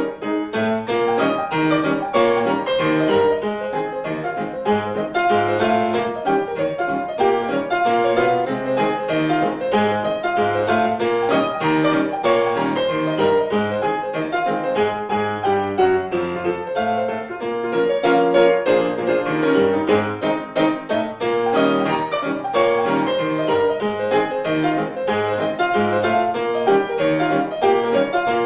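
Background piano music with quick, busy runs of notes.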